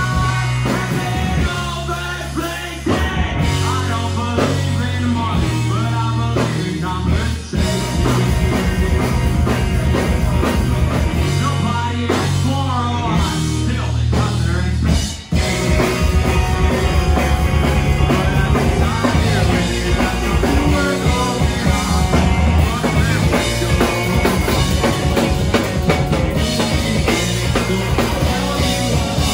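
Live rock band playing: electric guitar, bass guitar and drum kit. The music breaks off suddenly for a moment about fifteen seconds in, then the full band comes back in.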